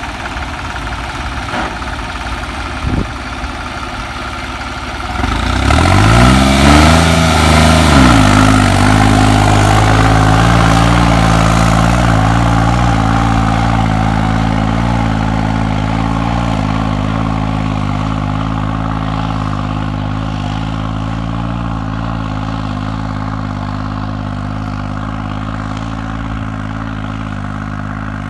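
Modified New Holland 3630 diesel tractor engine, its fuel pump opened fully, running and then revving up hard about five seconds in as it takes the load of a disc harrow. It then holds a steady heavy pull, growing gradually quieter as the tractor draws away.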